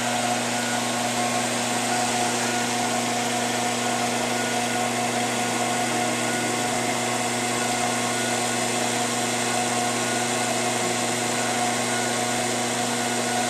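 Steady electric motor hum, an even low drone with a few fixed higher whine tones above it, unchanging throughout.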